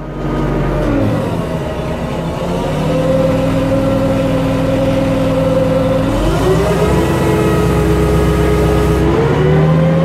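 Engine of a large wheeled rigging machine running under load. Its speed falls in the first second or so, then climbs in steps about three, six and nine and a half seconds in.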